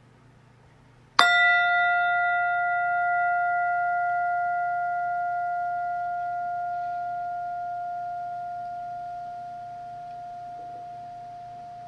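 Tingsha cymbals struck together once, about a second in, ringing a clear tone with higher overtones that fades away slowly.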